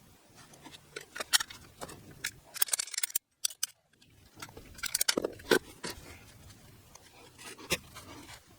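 Scattered clicks, knocks and scrapes of hand work with PPR plastic water pipe and fittings, bunched in two short flurries, with a sudden gap of dead silence about three seconds in.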